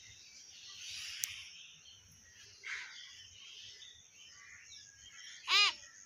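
Hill myna giving one short, loud call that rises and then falls in pitch, about five and a half seconds in, after a few seconds of faint background sounds.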